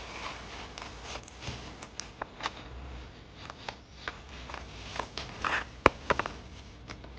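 Hands handling paper and collage materials: scattered light taps and clicks with a brief rustle of paper, the sharpest click near the end.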